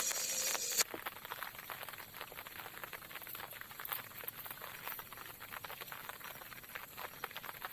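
Rain pattering: a dense scatter of small drop ticks. It follows a louder steady hiss that cuts off suddenly just under a second in.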